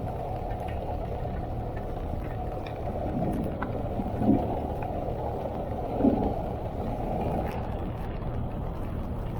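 Steady low rumble of a vehicle on the move in heavy rain, with two brief louder swells about four and six seconds in.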